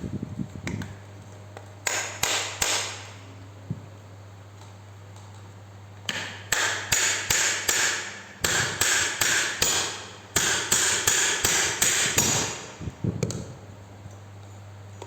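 Hammer striking metal in four short runs of quick blows, about three a second, each blow ringing briefly.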